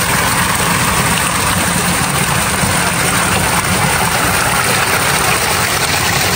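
Sulphur spring water gushing out from beneath a rock into a pool, a loud, steady rush of churning water.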